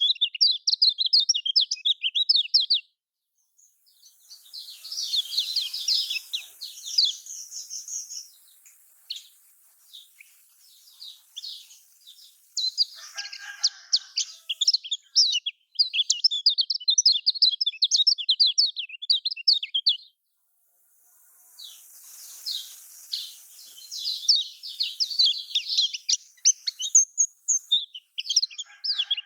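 Kecial kuning singing a fast, high-pitched chattering song in long phrases, broken by short pauses about three seconds in and about twenty seconds in. This is a bait song meant to set a silent kecial kuning singing.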